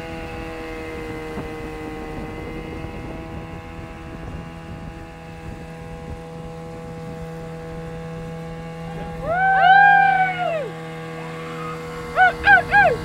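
Small tiller outboard motor on an aluminium boat running steadily. About nine seconds in comes a long rising-and-falling hooting call, then three quick short hoots near the end.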